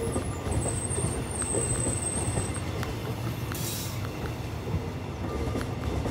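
Passenger coaches of an express train rolling past on the rails: a steady low rumble with wheels clicking over the rail joints. A thin high squeal runs through the first two seconds or so, and a brief hiss comes about three and a half seconds in.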